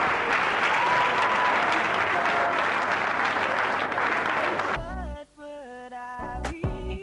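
An audience applauding, with a few voices calling out over it. A little past halfway the applause cuts off suddenly and music with a deep beat begins.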